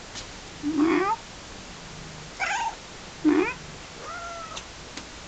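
Domestic cat meowing four times, short calls that rise in pitch, the last one fainter and held level.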